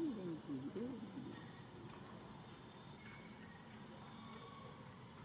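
Steady high-pitched drone of insects, crickets or cicadas, in the woodland. In the first second a voice gives a few short rising-and-falling calls.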